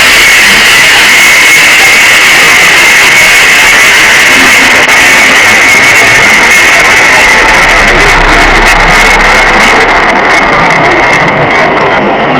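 Very loud music with guitar, a dense, harsh wash of sound pinned at full volume with a steady shrill band running through it; the highest treble drops away near the end.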